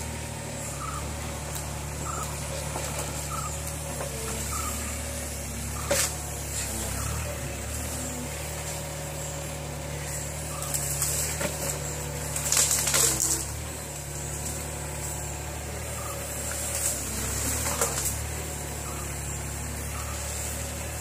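Hitachi mini excavator's diesel engine running steadily while the hydraulics work the boom and bucket. The engine note shifts a few times under load, and there are a few sharp knocks, one about six seconds in and a cluster around twelve to thirteen seconds.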